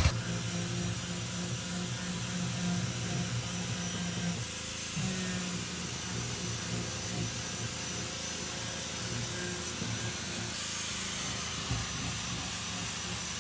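Electric angle grinder with a sanding disc running steadily against a wooden boat hull, sanding the wood; its tone shifts a couple of times and turns brighter near the end.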